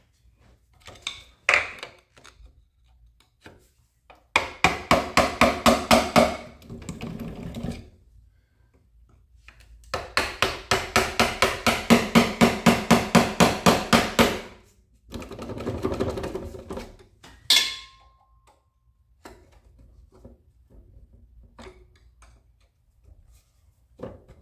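Hammer blows on a screwdriver held against an engine, in three runs of quick strikes at about four a second, with a few single taps between them.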